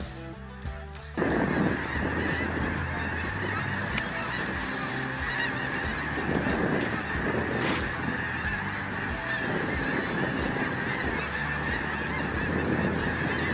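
A huge flock of snow geese flying over and calling, a dense clamor of many overlapping honks that starts suddenly about a second in and goes on without a break.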